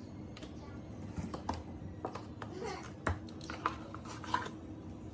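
Scattered light taps and clicks of a kitchen knife on a cutting board as butter is cut into small cubes, with faint child murmuring and a low steady hum underneath.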